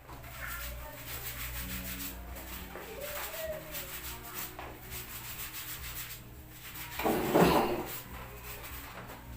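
Rapid, rhythmic rubbing or scrubbing, with a louder rush of noise about seven seconds in.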